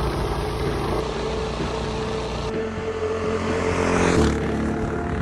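Motorcycle engine running as the bike rides along. A motorcycle then passes close by, loudest about four seconds in, its engine note dropping in pitch as it goes past.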